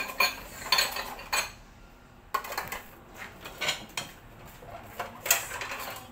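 Plates and cutlery clinking and knocking together in an irregular run as dishes are gathered and handled for washing.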